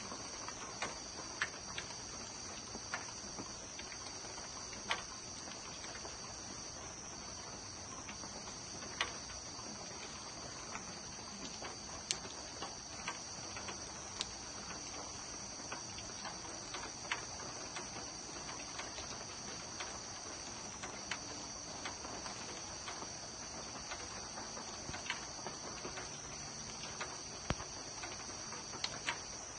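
Steady high-pitched chorus of night insects, with scattered sharp ticks of rain dripping every second or two.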